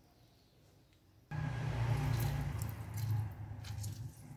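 A lemon half squeezed by hand over a glass blender jug: a wet squishing with small crackles of peel, starting abruptly about a second in, with a low rumble under it.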